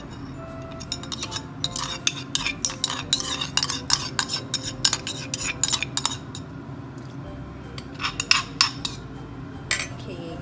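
A metal spoon clinking and scraping in quick, irregular strokes against a stone mortar and a stainless steel pot, scraping pounded chili and lime juice out of the mortar; after a short lull it stirs in the pot again near the end.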